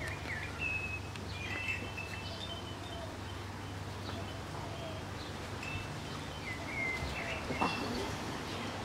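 Outdoor ambience: a steady low rumble with scattered short, high bird chirps, and one brief louder sound a little after seven seconds in.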